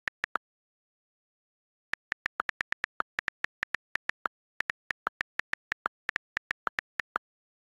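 Key clicks of an iPad's on-screen keyboard as a sentence is typed: a few taps at the start, a pause of about a second and a half, then a quick run of clicks, several a second, stopping shortly before the end.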